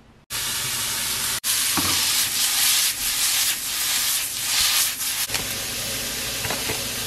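Pieces of chicken breast sizzling in a frying pan, a steady loud sizzle broken twice by brief abrupt cuts.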